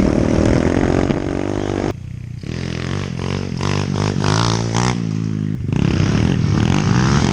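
Dirt bike engine running under throttle. It drops off abruptly about two seconds in, then revs rise and fall several times before it settles back to a steady pull.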